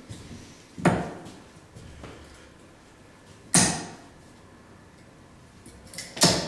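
Three darts striking a Winmau Blade 5 bristle dartboard, one sharp impact about every two and a half seconds.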